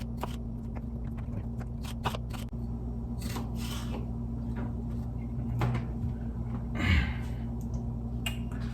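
Kitchen handling sounds: scattered knocks and clicks, the loudest about seven seconds in, over a steady low hum.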